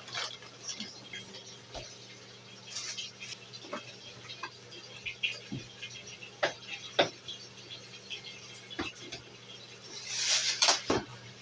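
Scattered knocks, clicks and rustles of groceries being handled and put away in a kitchen, over a steady low hum; a longer, louder rustle with several knocks comes about ten seconds in.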